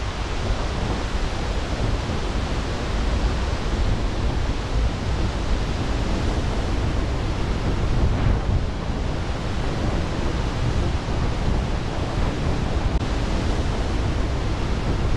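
Waterfall and whitewater rushing, a steady deep noise without a break.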